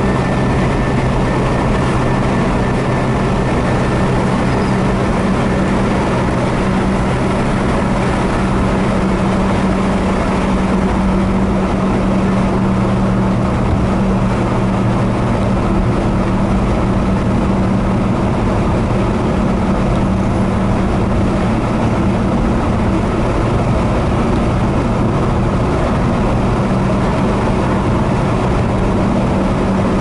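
A road vehicle's engine and tyre noise while driving at steady speed: a constant low engine hum over a wide rushing road noise. The hum's pitch shifts slightly about halfway through.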